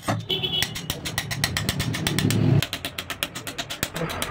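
Rapid, even light taps on a sheet of glass, several a second: the glass cutter tapping along the score lines to run the cut. A motor vehicle engine runs under the taps and cuts off about two and a half seconds in.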